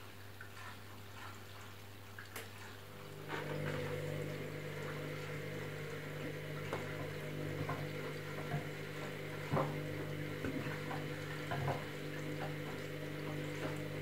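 Candy Smart Touch washing machine mid-wash. After a short pause, its drum motor starts about three seconds in with a steady hum and tumbles the wet load, the water sloshing and splashing against the door glass, with small knocks now and then.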